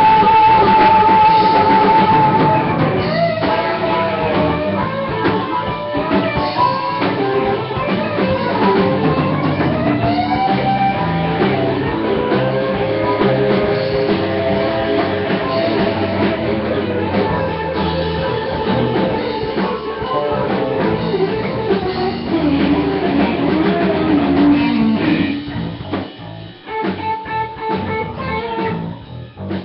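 Live blues-rock band playing: electric guitar, bass and drum kit with harmonica, the lead line holding notes and bending them. Near the end the playing thins out into sparser, choppier hits.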